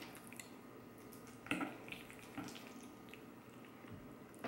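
Faint wet sounds of creamy Alfredo-sauced fresh pasta being lifted on a fork, with one brief soft splat about a second and a half in and a weaker one about a second later.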